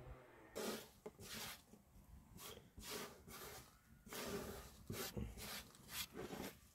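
A hand sweeping cut pieces of dough across a wooden board, in a series of short, irregular rubbing scrapes.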